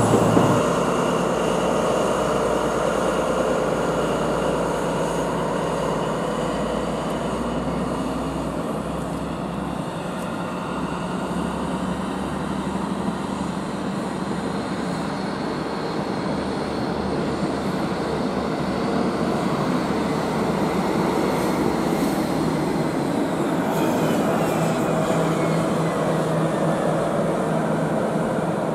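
East Midlands Trains HST (Class 43 diesel power cars with Mark 3 coaches) running slowly past on the platform line: a steady diesel engine rumble with train running noise, growing a little louder as the rear power car comes close. Over the last few seconds a high whine slides down in pitch.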